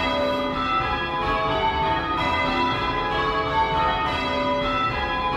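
Six cast iron church bells being rung in call changes, struck one after another in a steady, even run. Each note rings on under the next, and the order has just been changed to put the third bell at the lead.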